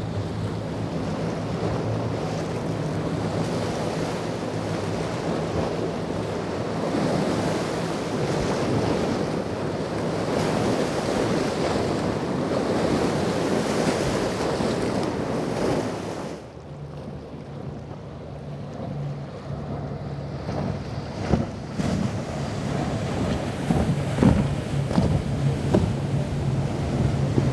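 Motor yachts running fast through rough inlet water: a loud, steady wash of spray, waves and wind with the low, even drone of the engines beneath it. About halfway through the sound changes abruptly: the hiss drops and a Pershing 9X's twin MTU 16-cylinder diesels drone steadily over the water noise, with a few sharp knocks near the end.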